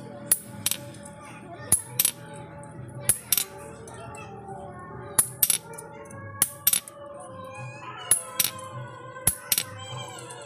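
A hand hammer strikes a steel punch held on a thin iron strip on a small steel anvil. The ringing metallic clinks come mostly in quick pairs, about one pair every second or so.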